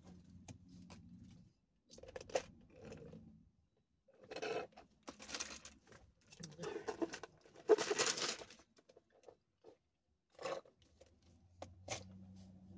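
A plastic fountain-drink cup and straw handled, giving several short, noisy rattles and rustles between about four and eight seconds in, plus a few scattered clicks. A low steady hum is heard at the start and again near the end.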